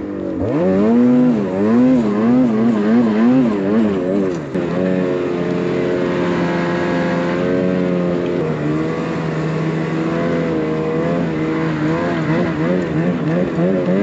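Snowmobile engine running hard under throttle, its pitch surging up and down several times a second, steadier for a few seconds in the middle, then surging again. This is a sled pulling a towed snowmobile up a steep snowy hill.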